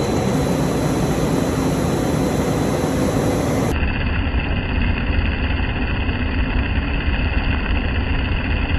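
Snack-puff factory machinery running steadily: a corn-meal mixer with rotating steel rods, then a ring extruder. About four seconds in, the sound changes abruptly to a deeper rumble without the high hiss.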